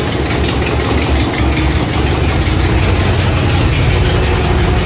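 1986 Chevrolet Caprice engine idling steadily with a loud low rumble, with an exhaust leak that the owner puts down to a failed donut gasket in the exhaust.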